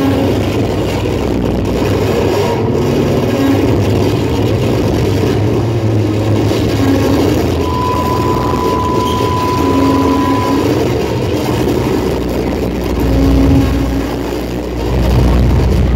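Live noise music: a loud, dense wall of rumbling noise and low drones. A steady high tone is held for about three seconds in the middle, and the rumble swells near the end.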